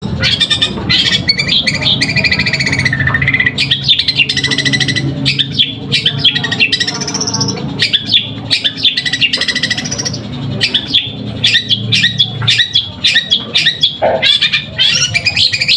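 Long-tailed shrike (cendet) singing loudly in rapid strings of sharp chirps and squawks, mimicking Eurasian tree sparrow chirping, over a steady low background hum.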